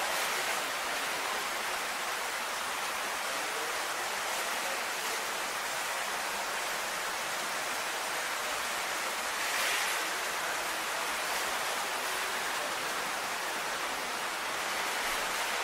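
Steady, even hiss with no distinct events, swelling briefly about ten seconds in.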